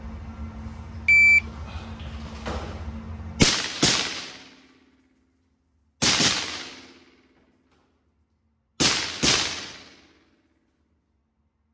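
A short electronic beep over a steady low hum, then three quick pairs of gunshots, each ringing out in the echo of an indoor range.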